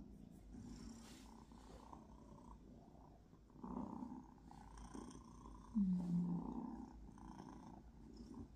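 Kitten purring steadily while its fur is handled, with a short low falling sound about six seconds in.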